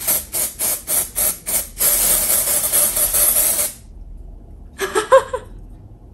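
Aerosol dry-shampoo can spraying into hair: a quick run of about seven short hissing puffs, then one longer spray of about two seconds. A brief pitched sound follows about a second later.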